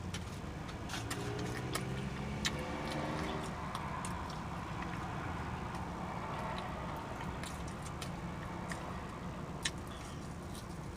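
Close-up eating sounds: scattered wet clicks and smacks of chewing, over the steady low hum of a car's cabin.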